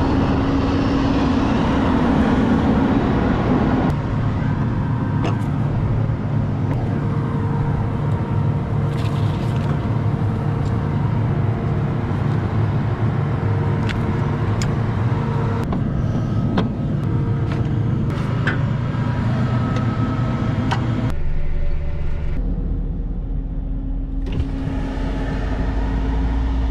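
Farm machinery engine running steadily with a low hum, its sound changing abruptly a few times, about 4 seconds in and again near the end.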